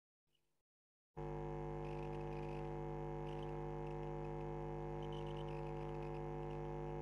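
Steady electrical hum made of many steady tones, like a buzz on an open microphone line. It switches on suddenly about a second in, after near silence.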